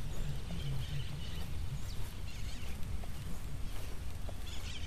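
Outdoor morning ambience: faint bird chirps over a steady low rumble on the phone's microphone.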